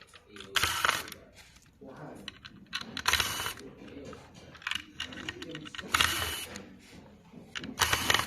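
Several short bursts of plastic scraping and clicking as the circuit board is worked forward out of the ultrasonic flowmeter's housing.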